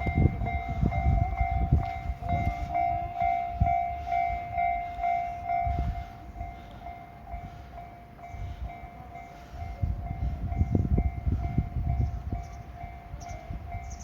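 JR East 211 series electric train running past with a low rumble and knocking from the wheels. Over it a level crossing warning bell rings in a steady repeating ding, loudest in the first half.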